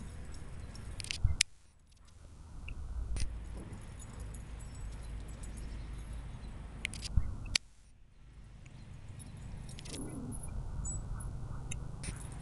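Metal collar tags on running, playing huskies jingling, with scattered sharp clicks and a steady low rumble on the microphone.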